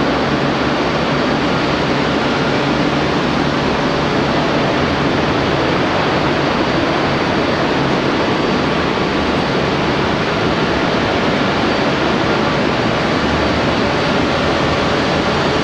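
Steady, loud, rushing noise with a few faint steady hum tones running through it, the constant background roar of a large steel mill hall. It shows no breaks or knocks.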